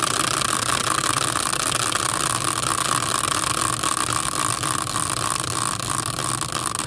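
Caster wheel rigged as a prize wheel, spun hard on its axle and whirring steadily as it coasts.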